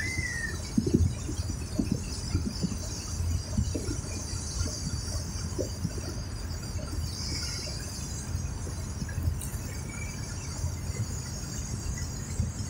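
Wind buffeting the microphone in uneven low rumbles over a steady high hiss of moving water, out on open water.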